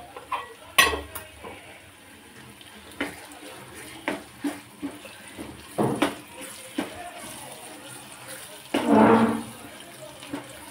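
Kitchen clatter: a series of clinks and knocks of a utensil against a cooking pot while spices go into frying onions, the loudest about a second in. A brief voice sounds about nine seconds in.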